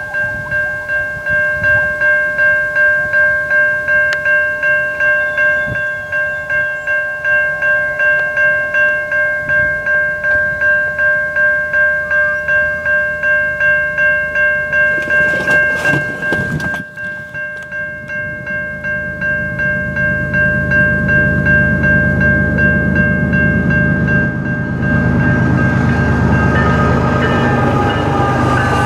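Railway level-crossing warning bell ringing steadily at about two strokes a second. From about two-thirds of the way in, a low train rumble grows louder as the train nears the crossing.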